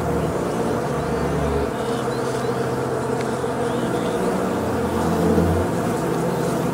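A steady low buzzing drone made of held tones, its deepest tone dropping away about two seconds in.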